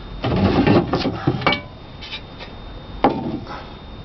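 Sheet-metal cover of a breaker panel being pulled off its box, metal scraping and rattling against the enclosure for about a second and a half. A single sharp knock follows about three seconds in.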